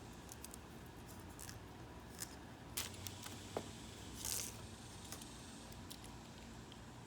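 Utility knife cutting the excess mesh off a window screen along the spline: faint scratchy slicing with scattered small clicks, and a short louder scrape of the blade through the mesh about four seconds in.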